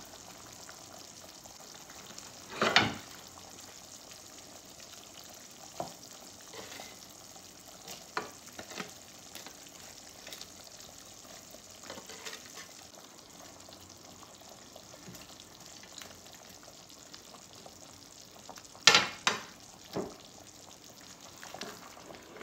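Thick curry gravy simmering on low heat in a nonstick pot with a steady low hiss. Browned chicken pieces are dropped in with a few scattered knocks and plops, the loudest about three seconds in and a cluster near the end, as a silicone spatula starts to stir against the pot.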